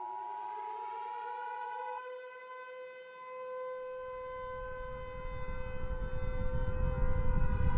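Air-raid siren winding up in pitch over about a second, then holding a steady wail. Alongside it a steady high beep stops about two seconds in, and a low rumble grows steadily louder through the second half.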